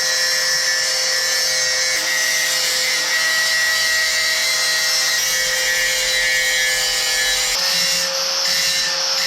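Angle grinder running steadily under load as it is passed over an old rusty steel spark-screen grille to strip the rust. It makes a steady whine with a strong hiss.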